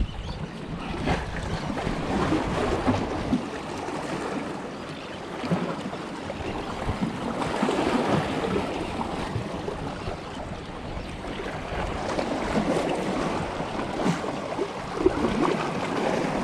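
Small waves washing and sloshing among the boulders of a rock jetty, swelling and falling in surges every few seconds.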